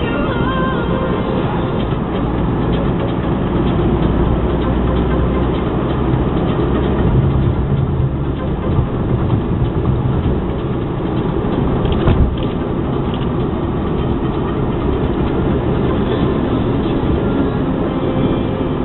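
Steady road noise of a Jaguar X-Type driving at speed, heard inside the cabin: a low tyre and engine rumble with a single sharp knock about twelve seconds in.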